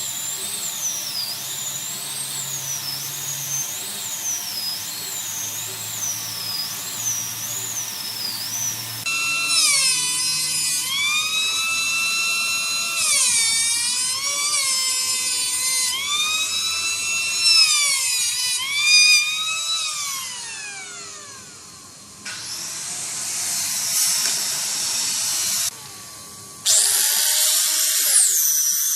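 Electric power tools running on wood in several cut-together shots: a high whine that wavers in pitch, then a motor whose pitch drops and recovers as it is loaded, then winds down about two-thirds of the way through, followed by rougher noise.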